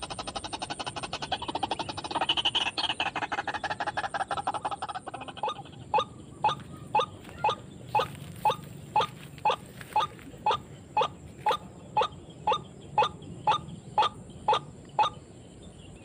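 Calls of a white-breasted waterhen, played as a trapping lure. The calls open with a fast, throaty chatter. About five seconds in they change to a steady series of short rising calls, about two a second, which stop about a second before the end.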